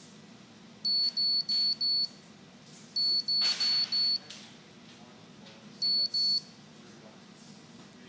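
Morse code keyboard's small buzzer sounding high single-tone sidetone beeps as the key is pressed: a group of four, another group of four, then two.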